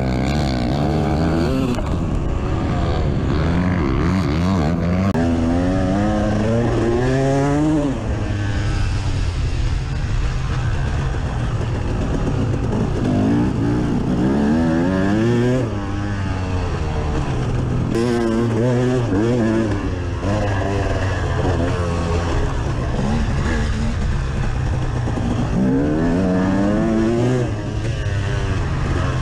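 Two-stroke dirt bike engine revving hard under acceleration, its pitch climbing and dropping again and again as the rider opens the throttle and shifts gears around the track.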